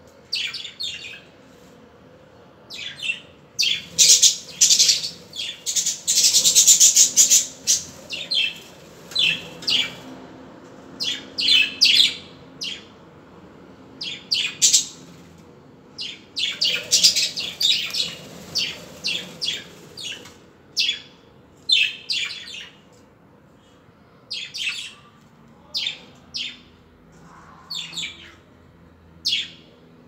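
A flock of budgerigars chirping in quick, irregular bursts of short high calls, with a dense flurry about four seconds in and another around sixteen seconds in, and sparser calls in between.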